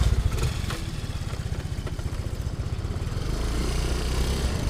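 Motorcycle engine running at steady low revs, its rapid firing pulses plain, growing slightly louder in the second half.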